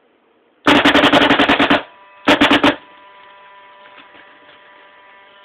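Bob Long Victory V1 electronic paintball marker firing reballs in rapid fire: a fast string of about a dozen shots in just over a second, then a short burst of about four more half a second later. A steady electrical hum runs on after the shots.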